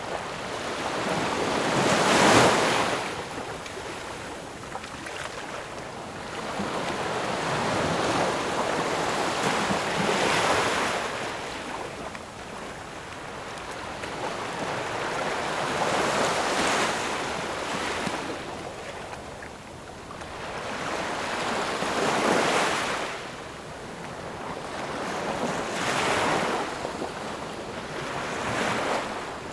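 Ocean surf: waves breaking in slow swells of hiss, each rising and falling back over a few seconds, one every four to eight seconds, the loudest about two seconds in.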